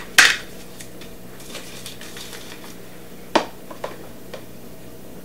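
A metal spoon scooping cornstarch from a plastic container. There is one sharp clack just after the start, a faint scraping through the middle, and a few light clicks of the spoon against the container a little after three seconds in.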